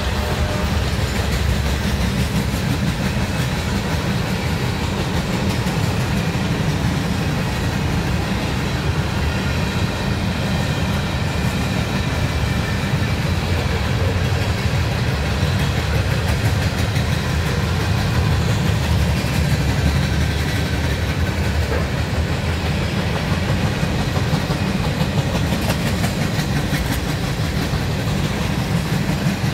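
Freight train cars rolling steadily past on the rails: a continuous low rolling noise of steel wheels on track from a long mixed consist of hoppers, boxcars, tank cars and centerbeam flatcars.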